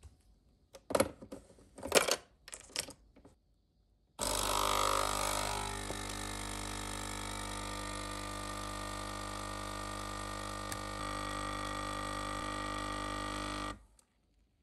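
A few sharp clicks as a coffee capsule is handled and loaded, then a capsule espresso machine's pump hums steadily for about ten seconds while it brews, a little louder at first, before cutting off suddenly near the end.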